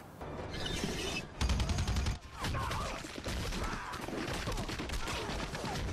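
Battle scene from a war film: rapid gunfire, many shots in close succession, over a low rumble that swells now and then.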